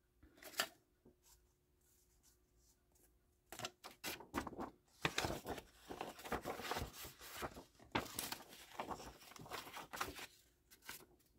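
Sheets of paper and cardstock rustling and scraping as they are handled and moved about. Nearly quiet at first apart from a single tap, then busy handling noise from about three and a half seconds in, easing off near the end.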